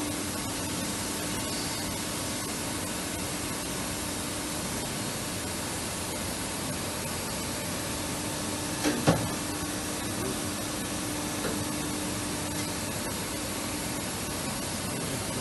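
CNC lathe running: a steady hiss with a faint steady hum that drops out for a few seconds midway, and a single sharp knock about nine seconds in.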